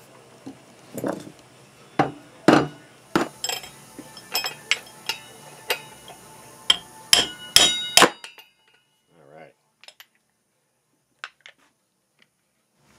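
Hammer blows on a steel drift set through the hub of a BMW motorcycle front wheel, driving the old wheel bearing out: a string of sharp, ringing metallic strikes, irregular at first and coming closer together near the end, stopping about eight seconds in as the bearing comes free.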